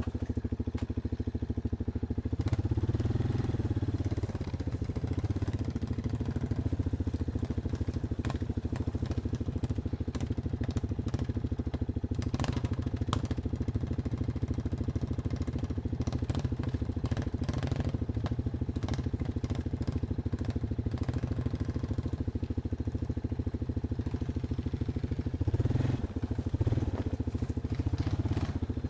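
Off-road vehicle's engine running steadily at low revs, with brief rises in revs about three seconds in and near the end, and scattered clicks and knocks over it.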